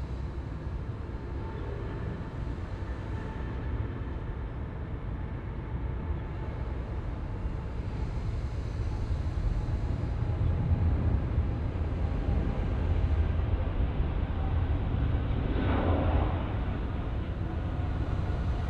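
Boeing 777 freighter's GE90 jet engines at takeoff thrust: a deep, steady rumble that grows gradually louder, with a brief rush of higher noise near the end.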